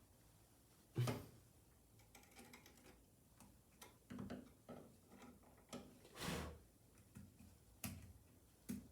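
Irregular clicks, taps and light knocks from handling an electrical outlet and its wires in the wall box: a screwdriver and stiff copper wire against the outlet's terminals and the box. The sharpest click comes about a second in, with a short scrape around six seconds in.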